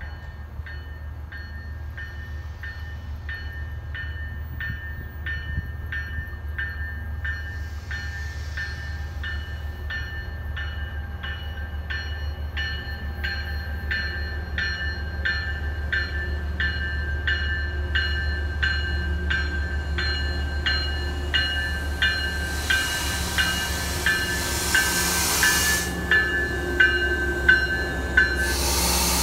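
MBTA commuter train bell ringing steadily, about one and a half strikes a second, growing louder as the cab-car-led train approaches over a steady low rumble. A rushing wheel-and-air noise swells about three-quarters of the way through as the train comes alongside, and the bell stops just before the end.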